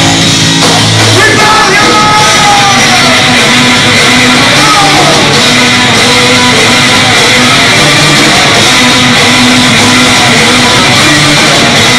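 A doom metal band playing live and loud: heavily distorted electric guitar over bass and drums, with a few sliding high notes in the first few seconds.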